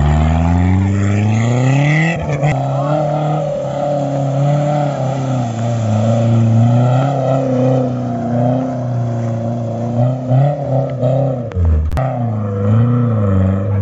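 Off-road Maruti Gypsy's engine revving hard under load on a mud course. The pitch climbs over the first two seconds, then holds high with wavering revs. Near the end it dips briefly and revs up again.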